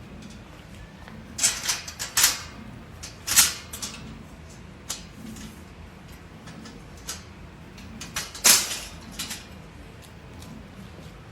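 Heavy-duty metal dog kennel rattling in a few short bursts of clatter as a dog moves around inside it, loudest about three and a half and eight and a half seconds in.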